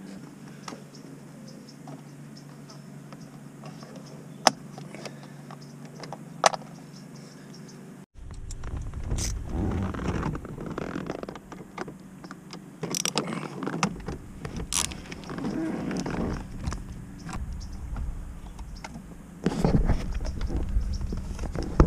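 Hands and tools working at a steering wheel while the driver's airbag module is unbolted and pulled free: two sharp clicks over a low steady hum, then irregular knocks, clunks and rustling of plastic and hands that get heavier near the end.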